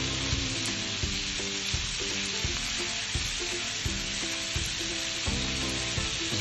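Food sizzling as it fries in hot oil in a pan, a steady crackling hiss, with soft background music underneath.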